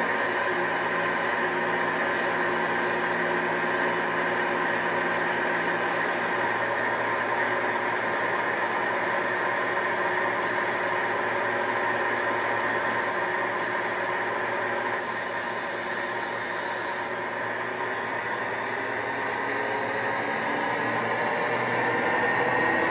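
A DCC sound decoder in a model Class 68 locomotive, playing through its speaker: the diesel engine idles steadily, with a brief hiss about fifteen seconds in. Near the end the engine note rises as the locomotive starts to pull away.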